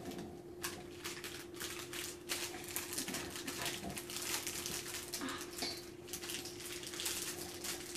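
Plastic wrappers crinkling as they are peeled off individually wrapped cheese slices, in quick irregular crackles.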